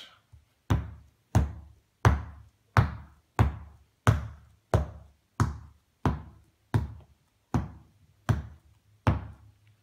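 A fist knocking hard on the aluminium back of an iPad lying face down on a blanket: about thirteen evenly spaced knocks, roughly one and a half a second, each dying away quickly. The knocking is done to cure the iPad's flickering screen after it was dropped.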